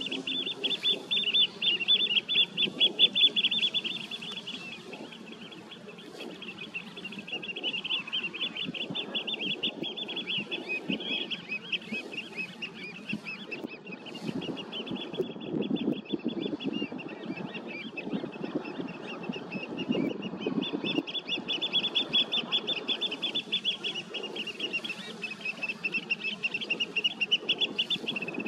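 A flock of birds calling without a break, a dense, fast chatter of high notes. Low splashing and water noise sit underneath.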